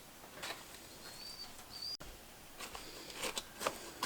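Week-old chicks peeping twice, short high calls that rise slightly, followed by a scatter of light taps and scratches.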